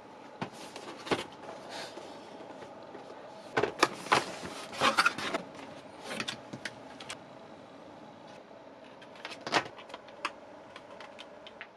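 Scattered clicks and short bursts of clatter as a computer keyboard and its parts are handled, loudest a few seconds in, over a steady faint hum.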